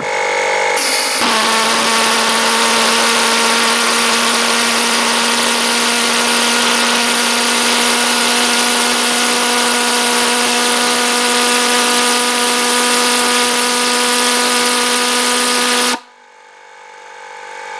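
Small RC-size HobbyKing pulse jet engine catching about a second in, then running with a steady, loud drone. The sound cuts off abruptly near the end.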